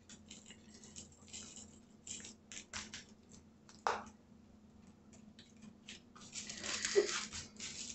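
Soft scattered rustles and clicks of hands rubbing dry seasoning into raw chicken thighs on an aluminium-foil-lined pan and handling a glass spice jar, with a sharper knock just before four seconds in and a louder stretch of rustling about six to seven seconds in.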